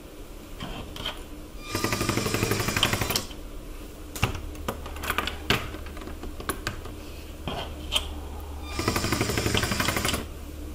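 Small LEGO SPIKE Essential motor driving the snack stand model, running in two short spells of about a second and a half each with a fast mechanical rattle. Between the spells come sharp clicks of plastic LEGO pieces being handled and set down.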